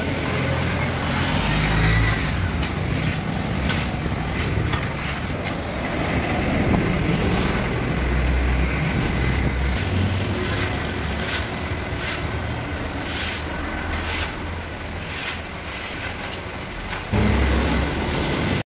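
Road traffic from an adjacent highway: a steady rumble of passing cars and trucks, with scattered clicks and knocks over it.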